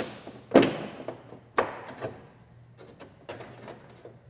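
Knocks and thuds of a fiberglass race fairing panel being pushed into position on the motorcycle: a sharp knock about half a second in, another a second later, then a few lighter taps.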